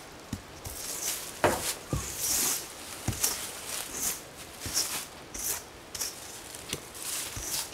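Footsteps on rough outdoor ground: uneven steps and scuffs, one every half second or so.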